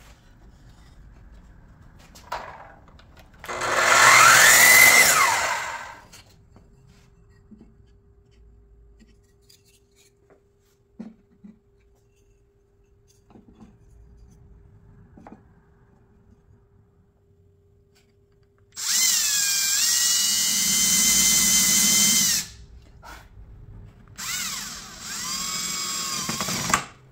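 Cordless drill/driver driving screws through wooden cleats into the table frame, in two runs of about three seconds each late on; the pitch of the second dips and recovers. An earlier power-tool run about four seconds in rises and falls in pitch.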